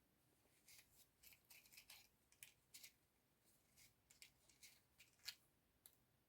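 Faint handling of a matchbox and matches close to the microphone: a string of short, crisp ticks and scrapes starting about a second in.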